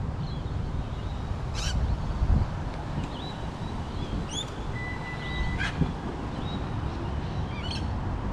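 Scattered birdsong, short high chirps and calls, over a steady low rumble.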